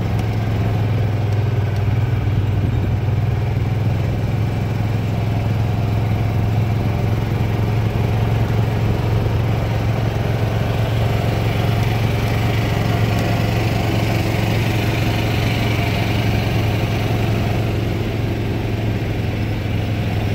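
Golf cart driving along a road: a steady low drone from the cart's motor, with road and wind noise, holding even throughout.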